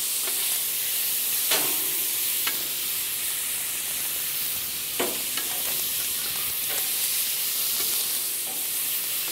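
Squid strips and lardo sizzling in hot fat on a steel plancha griddle plate. A metal spatula scrapes and taps on the plate a few times as the pieces are turned.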